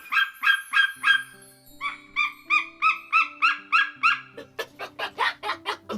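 Saker falcon giving a long series of short repeated calls, about three a second, quickening near the end, over background music with held low notes.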